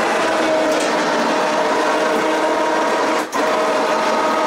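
ATV electric winch running under load, reeling in its line to lift a plow blade, with a steady motor whine. It stops for a moment a little over three seconds in, then runs again.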